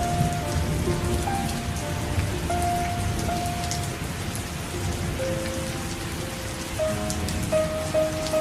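Steady rain falling, with a slow melody of held notes playing softly over it.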